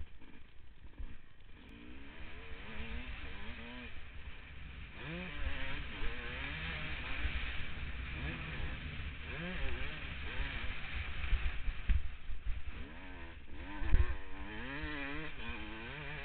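Suzuki RM250 two-stroke single-cylinder motocross engine revving hard under riding, its pitch climbing and dropping again and again through throttle and gear changes, with low wind buffeting on the microphone. A loud thump about fourteen seconds in.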